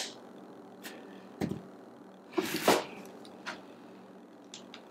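Scattered light clicks and knocks from handling a paint sprayer's gun and controls, with one slightly louder, brief rustling knock about two and a half seconds in.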